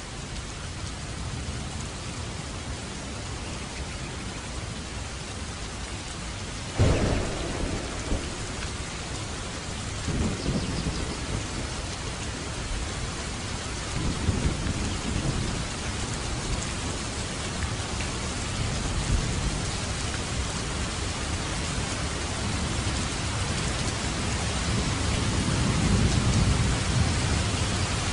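Steady rain with thunder: a sudden loud clap about a quarter of the way in, then low rolling rumbles that come and go and build again toward the end.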